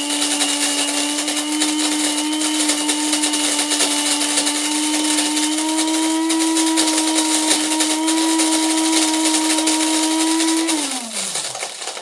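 Cuisinart DBM-8 electric burr mill coffee grinder running, grinding beans on a coarse setting: a steady motor hum with grinding noise over it. Near the end it shuts itself off and the hum falls in pitch as the motor winds down.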